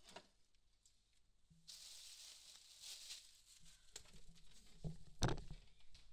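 Someone getting up and walking off across a wooden floor: a short rustle of movement, light knocks and footsteps, and one sharp knock about five seconds in.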